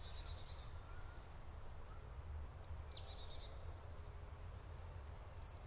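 Faint forest birdsong: a few high calls, including a quick run of about eight short even notes and a couple of steep falling calls, over a low steady rumble.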